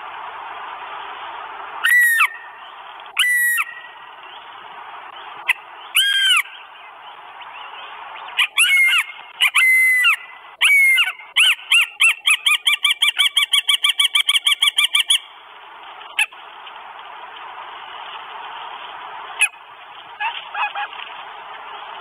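Northern goshawk calling: several drawn-out wailing calls, then a fast run of short notes, about five a second, lasting some four seconds, with a few fainter calls near the end.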